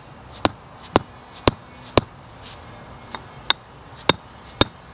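Dead blow hammer striking a Techo Bloc Westmount concrete border paver in a row of sharp knocks, about two a second, the later ones a little lighter. The paver is being beaten down into a setting bed deliberately built up higher than needed along the border.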